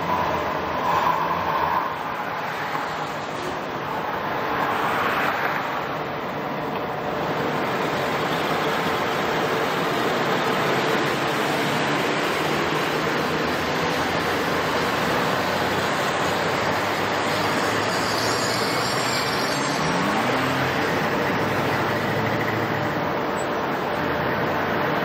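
Light rail vehicles running on street track, a steady noise of wheels and motors with no clear events.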